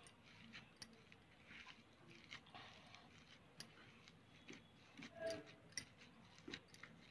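Faint sounds of a hand mashing and mixing a boiled potato and green pea filling in a pan, with scattered light clicks.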